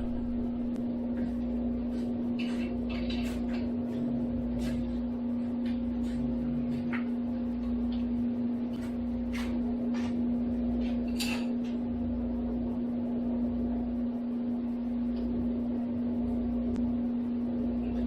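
A steady electrical hum with scattered light clicks and clinks, the sound of hand tools being worked on a milling machine.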